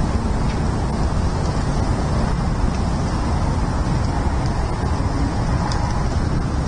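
Steady low rumble of outdoor background noise, wind and distant road traffic, picked up by an eagle-nest camera's microphone, with a few faint high ticks.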